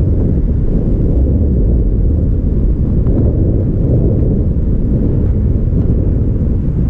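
Steady low rumble of a car driving, wind buffeting the microphone of a hood-mounted camera, mixed with road and engine noise.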